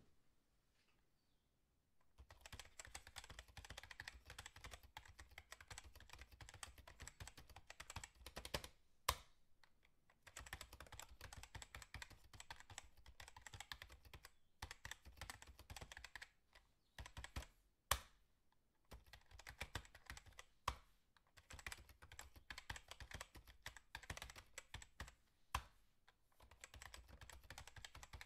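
Computer keyboard typing: fast runs of key clicks broken by short pauses, with a few sharper, louder key strikes.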